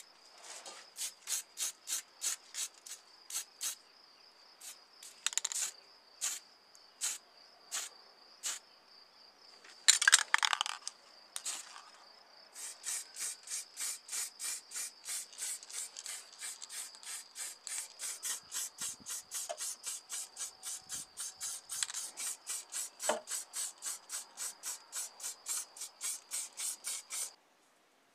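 Spray paint hissing from a nozzle in many short bursts onto scale-model car parts, with a few longer sprays in the first half and then a regular run of about three bursts a second that stops suddenly near the end. A faint steady high whine runs under the bursts.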